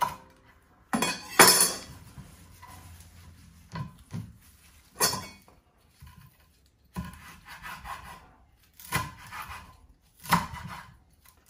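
Kitchen knife cutting celery leaves on a wooden cutting board: about eight separate, unevenly spaced knocks of the blade on the board, with soft rustling of the leaves between.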